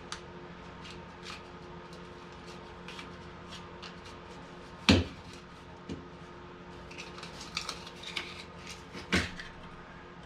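Shims and tools being handled while shimming under floor tile: scattered light clicks and clatter, with two sharp, louder knocks about five and nine seconds in.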